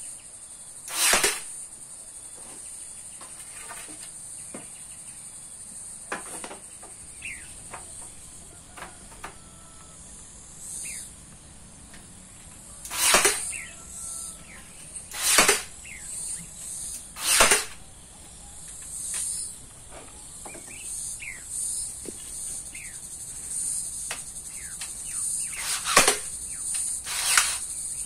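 A steady, high-pitched insect trill, like crickets, runs throughout. Over it come several loud, short swishes and scattered brief falling chirps.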